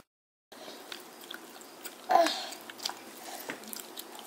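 A seven-month-old baby chewing and mouthing small peach yogurt snacks, with small soft clicks of fingers on a plastic high-chair tray. One short vocal sound comes about two seconds in.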